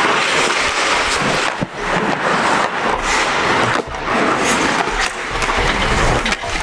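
Ice hockey skate blades scraping and carving the ice close by during a scramble in front of the net, with a few sharp clacks of sticks and puck.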